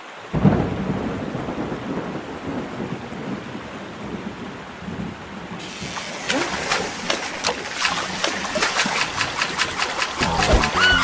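Rainstorm sound effect: steady rain with a loud thunder clap about half a second in. About halfway through, the rain turns brighter, with many sharp individual drops hitting.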